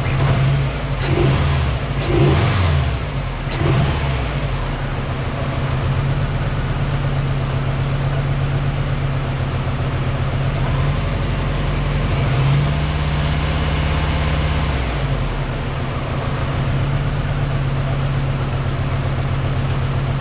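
Subaru WRX engine running at idle, with three quick revs in the first four seconds and another brief change in engine note about twelve seconds in.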